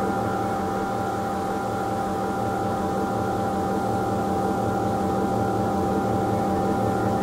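Experimental ambient drone music: a dense bed of held tones, low and mid, that stays steady and unchanging, over a faint hiss.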